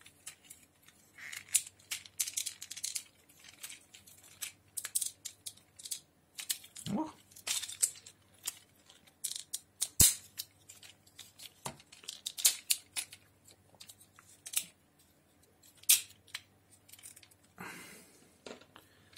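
Plastic clicks and rattles of a vintage Generation 2 Optimus Prime toy being transformed by hand from truck cab to robot, its parts being swung and snapped into place, with the sharpest click about ten seconds in.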